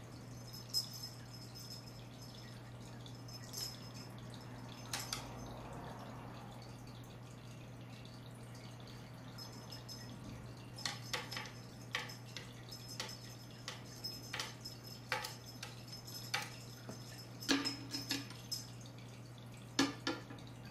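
Scattered light clicks and taps, sparse at first and coming thick and irregular through the second half, over a steady low hum.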